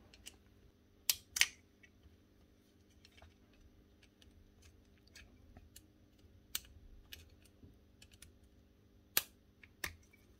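Scattered light clicks and taps of small plastic parts and wire connectors being handled, with two sharp clicks close together about a second in and another sharp click about nine seconds in.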